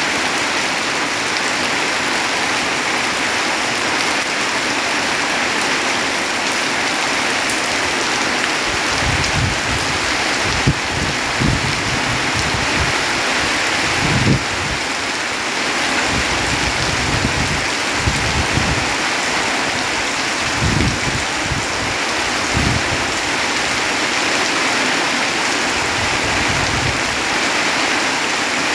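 Heavy rain falling steadily, a dense even hiss. Short low rumbles come and go through the middle of the stretch.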